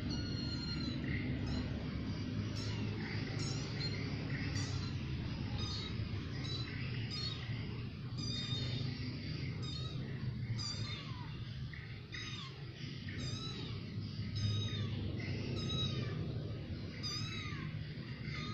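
Kittens mewing over and over, short high-pitched cries about three every two seconds, over a steady low hum.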